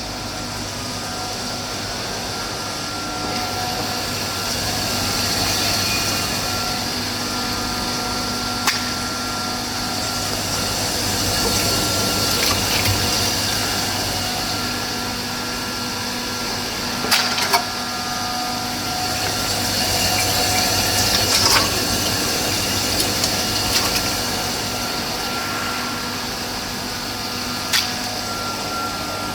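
Industrial cube ice machine with a screw compressor running: a steady machinery hum with several constant tones and a hiss that swells and fades. A few sharp knocks come through at scattered moments.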